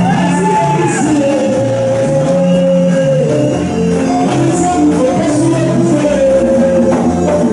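Music playing: long held melody notes over a bass line that steps from note to note.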